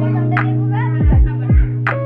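Background music with a beat: deep kick drums dropping in pitch and two sharp snare-like hits over held bass notes.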